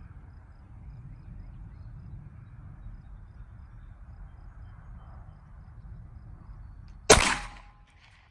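Faint low outdoor rumble, then about seven seconds in a single shot from a Glock 43X 9mm pistol, sharp and loud, dying away within half a second.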